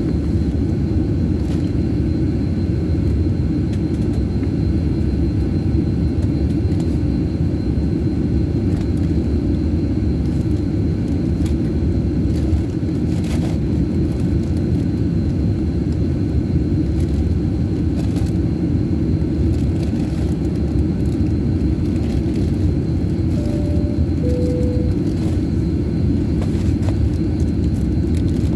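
Steady low rumble inside a jet airliner's cabin as the plane taxis on the ground. About three-quarters through, a short two-note chime sounds, the second note lower.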